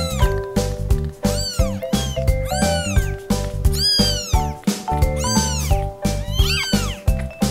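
A 13-day-old kitten mewing over and over while being held, thin high mews that rise and fall, about one or two a second: protest at being held. Background music plays underneath.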